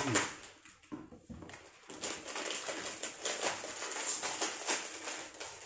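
Plastic snack wrapper crinkling and rustling as the packet is handled and opened, in quick irregular crackles.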